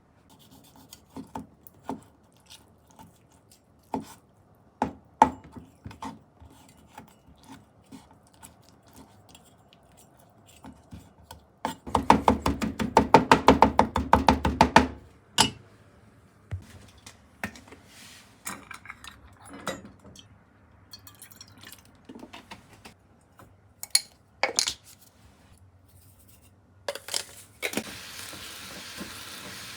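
Kitchen prep sounds: scattered clicks and knocks of utensils and dishes, with a loud run of rapid, even knocks lasting about three seconds a little before halfway. Near the end, water starts running from a tap.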